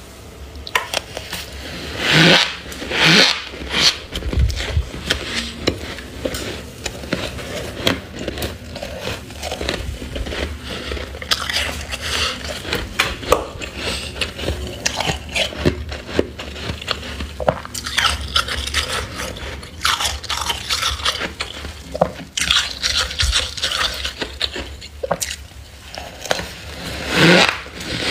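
Metal spoon scraping and crunching through thick, snow-like frost buildup on a freezer's walls, in a run of short, uneven strokes. A few strokes about two seconds in and near the end are louder and longer.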